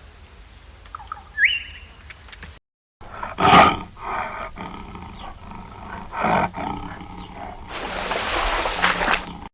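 Bird chirps for the first couple of seconds. Then, after a sudden cut, an animal's loud calls: several short ones and one long rasping call near the end.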